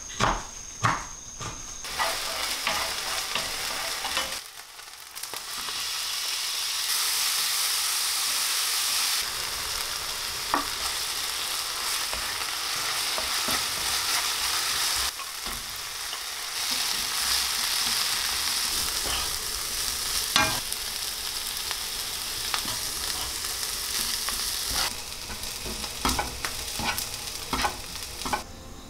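Chopped kimchi and onion sizzling as they fry in a nonstick pan, stirred so the utensil scrapes and taps against the pan. In the first two seconds a few knife chops land on a wooden cutting board.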